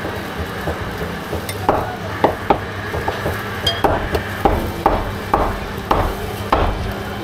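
Kitchen utensils knocking and clinking at a food stall as metal spoons scoop seasonings from bowls, a sharp clink about twice a second from about one and a half seconds in, over a steady low hum.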